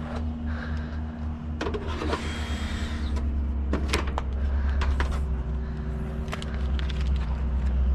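Truck engine running with a steady low hum that grows louder in the second half, with a few sharp knocks and clanks over it.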